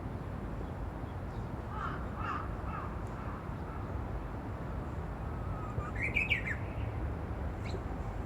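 A songbird in shrubbery gives two short, broken song phrases, one about two seconds in and a louder one about six seconds in, over a steady low rumble. The phrases fall short of the full 'hoo-hokekyo', and the listener takes the bird for a Japanese bush warbler (uguisu) still practising its song.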